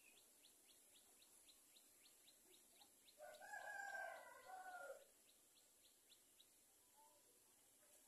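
A rooster crows once, about three seconds in, for under two seconds. Under it runs a faint, rapid high ticking.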